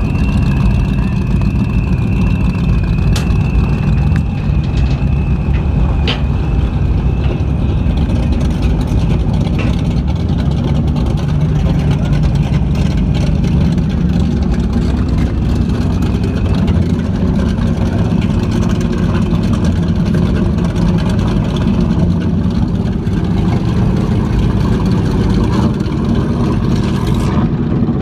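High-performance powerboat's engines rumbling steadily at idle as the boat creeps along at slow speed, with a faint high whine over the first several seconds.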